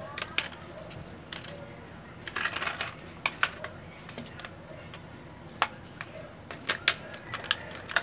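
Stiff clear plastic blister packaging of a set of disc brake pads being handled and worked open by hand: scattered sharp plastic clicks and crackles, with a denser stretch of crinkling about two and a half seconds in.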